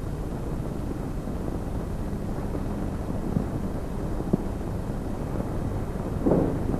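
Steady hiss and low hum of an aged 1930s 35 mm film soundtrack, with a couple of faint clicks in the middle and a short sound near the end.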